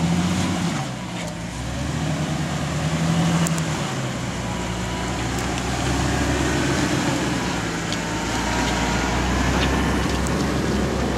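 Jeep Wrangler Rubicon's inline-six engine working at low revs as the Jeep crawls over rocks, rising briefly twice in the first few seconds as the throttle is given, with scattered clicks of rock under the tyres.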